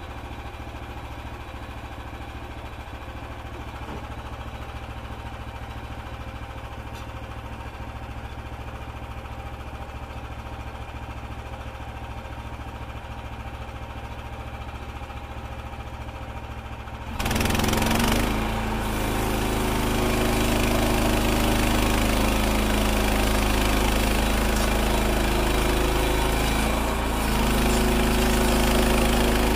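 Frontier OS27 portable bandsaw mill's small gasoline engine idling steadily. About 17 seconds in it throttles up sharply and the band blade goes into the cherry cant, running much louder and noisier as it saws off a board.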